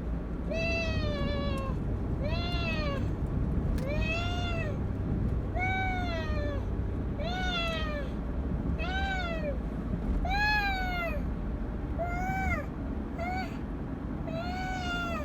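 A cat meowing over and over in a car, about ten drawn-out meows each rising and then falling in pitch, one every second and a half or so. A steady low rumble from the car runs underneath.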